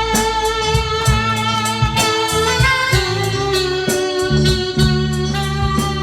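Instrumental break of a song: guitar playing a sustained melody over a bass line and a steady beat.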